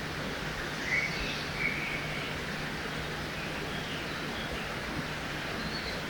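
Steady rush of river water, with a few brief bird chirps about a second in and again shortly after.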